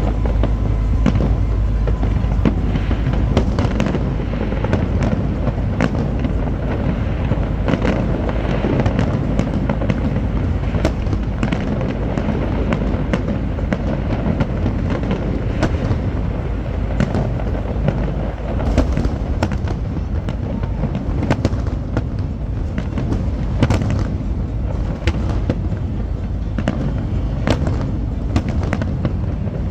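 A fireworks display going off without pause: many sharp bangs and crackles in quick, irregular succession over a steady low rumble.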